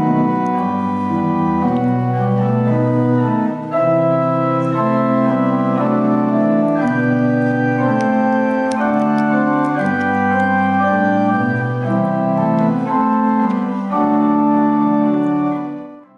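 Pipe organ playing a slow succession of held chords over a moving bass line, fading out at the very end.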